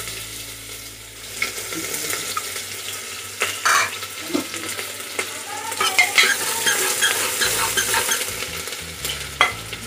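Chopped onion sizzling as it fries in hot mustard oil in an aluminium pressure cooker, with a metal ladle stirring it and knocking against the pot several times.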